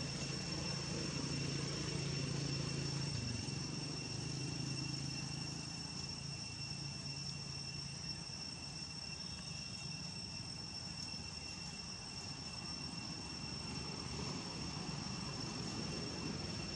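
Steady high-pitched drone of insects, with the low hum of a distant engine underneath for the first several seconds before it fades out.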